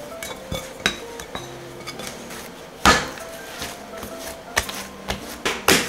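Risen milk-bread dough being tipped from a glass mixing bowl onto a silicone baking mat and pressed down by hand to knock the gas out after the first proof. There are a few sharp knocks, with two loud ones about three seconds in and near the end.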